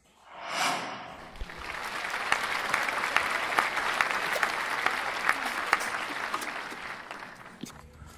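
Applause, many hands clapping, dubbed in as a sound effect: it swells up after a brief rush of noise near the start, holds for several seconds and fades away near the end.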